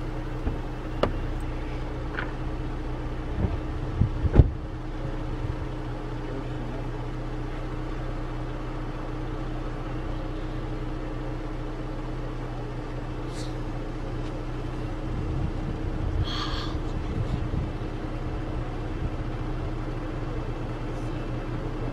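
Vehicle engine idling steadily. A few short knocks come in the first five seconds, the loudest about four seconds in.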